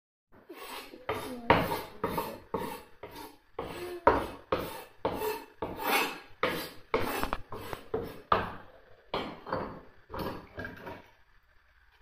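Rhythmic scraping strokes, about two to three a second, each a short rasp, stopping shortly before the end.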